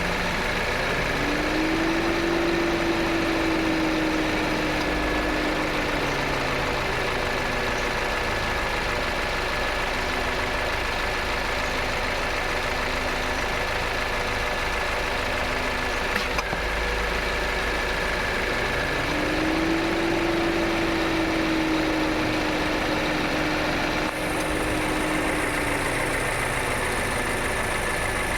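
Toyota Innova Hycross running stationary with its AC on: a steady mechanical hum with a low tone that swells and fades twice, and a single sharp tock about sixteen seconds in. The tock is the noise the owner hears each time the AC compressor kicks on, which was not there before and is getting more pronounced; its cause is unknown.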